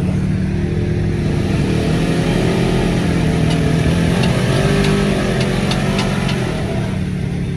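Off-road vehicle's engine revving, its pitch rising and falling, while the vehicle is stuck in mud. A quick run of sharp ticks comes in the middle.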